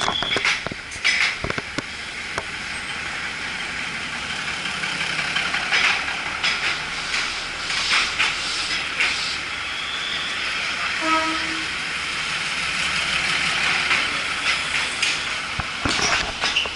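Railway platform beside a standing passenger train: a steady hiss with scattered knocks and clanks, and a brief pitched tone a little past the middle.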